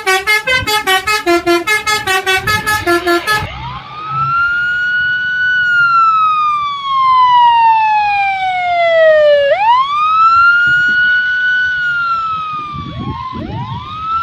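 Bus 'telolet' multi-tone air horn playing a fast tune of short notes, about five a second, for the first three seconds or so. Then a loud wailing siren tone that rises, falls slowly over several seconds, sweeps up again and falls once more.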